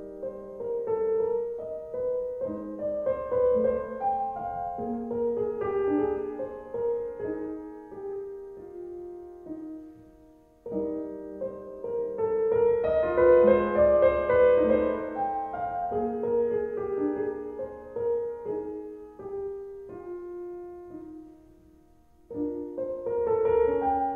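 Background piano music, a slow melody of single notes and chords. It fades out about ten seconds in and starts again at full level, then dies away once more near the end before picking up again.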